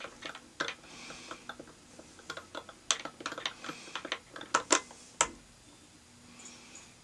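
Small irregular clicks and taps from fingers, thread and tying materials being worked on a hook held in a fly-tying vise, with two brief rustles. The sharpest clicks come about three seconds and just under five seconds in.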